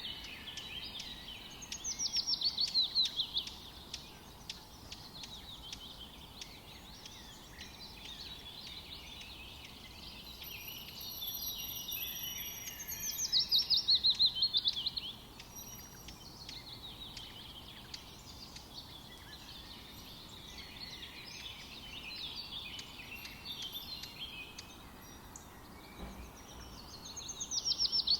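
Songbirds chirping and singing in the open air over a faint steady hiss. Three times, about every twelve seconds, one bird sings a loud run of quick repeated falling notes.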